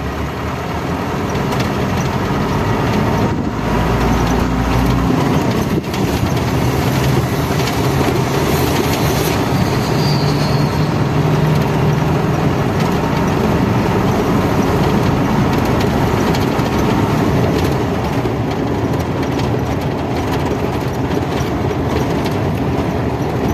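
Steady engine and road noise heard from inside the cabin of a vehicle driving along a paved road.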